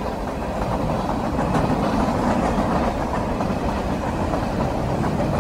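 Freight train cars rolling past over the rails: a steady rumble of wheels and running gear.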